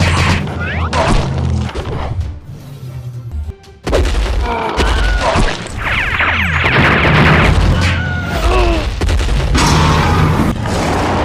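Cartoon battle sound effects over background music with a heavy bass: booms and crashes with whooshing energy-blast and laser effects. It drops quieter for a couple of seconds, then comes back with a sudden hit about four seconds in.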